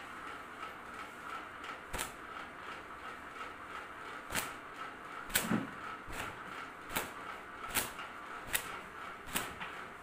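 Long wet hair being flicked and slapped dry by hand, giving sharp slaps, a few at first and then about one every second in the second half, over the steady hum of a running ceiling fan.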